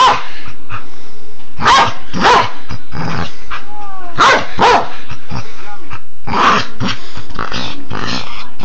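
Pet dog growling and barking in rough play, a rapid series of loud, short snarls and barks as it bites at its owner's arm.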